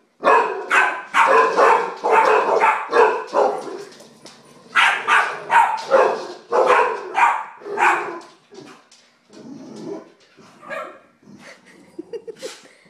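Dogs barking rapidly and repeatedly in a scrap between a chow chow and a Rottweiler puppy. The barks come in two dense runs with a short pause between them, then thin out and grow quieter over the last few seconds.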